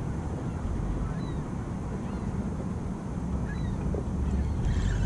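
Steady low wind rumble on the microphone while the handle of a spinning reel is cranked to retrieve the line. Two faint short chirps come through, about a second in and near four seconds.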